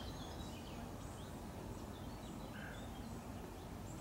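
Quiet outdoor ambience: a steady low background rumble with faint, scattered bird chirps.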